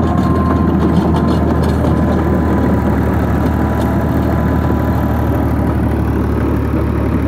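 Fiat 480 tractor's three-cylinder diesel engine running steadily under load while it drives a rotary tiller through the PTO, with a thin, steady whine over the engine note. The tractor is said to have a PTO gear problem.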